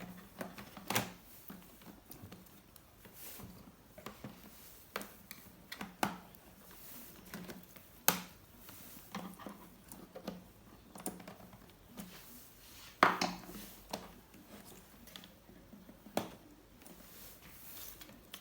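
Hands working on an HP ProBook 4520s laptop's case and keyboard: irregular plastic clicks and knocks, a few louder ones about 8 and 13 seconds in, over a faint low hum.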